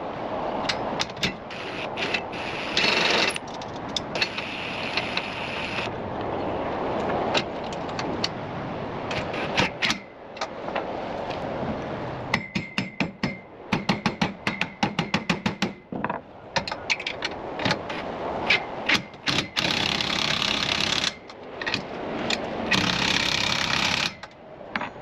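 Hand tools at work on metal: runs of rapid ratcheting clicks, with knocks, rattles and scraping in between.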